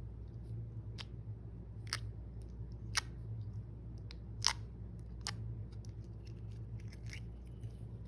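Slime being worked by hand, giving off sharp little clicks and pops roughly once a second over a steady low hum.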